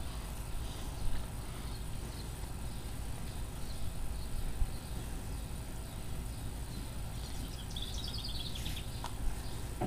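Outdoor ambience with a steady low rumble, a bird's brief rapid trill near the end, and a few faint short knocks.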